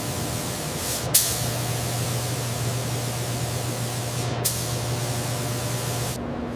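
Compressed-air spray gun hissing in long bursts, with short breaks about a second in and again past the middle, then cutting off near the end. A steady low hum runs underneath.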